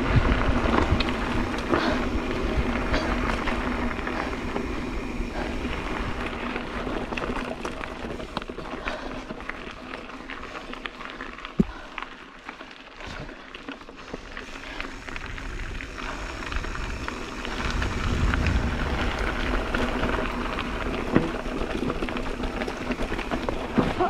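A mountain bike rolling fast over a dirt and gravel trail: tyre noise with rattles and clicks from the bike over rough ground, and one sharp knock about halfway. It is quieter in the middle and louder and rougher near the end over loose rocky ground.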